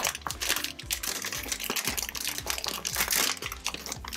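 Clear plastic parts bags crinkling and rustling as they are handled, with a louder stretch of rustling about three seconds in.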